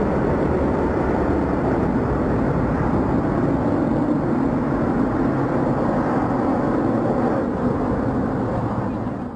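Jet airliner's engines at takeoff thrust as it climbs out: a steady, heavy rumble that begins to fade near the end and then cuts off abruptly.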